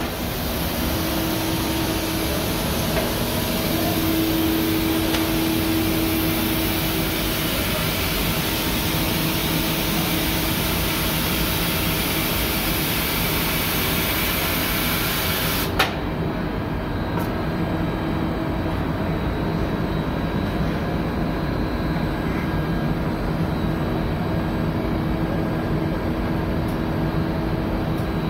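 Steady running noise of commercial bakery production-line machinery, conveyor and oven equipment, with a constant hum and a hiss. A sharp click comes a little over halfway through, after which the hiss is gone and the lower machine noise carries on.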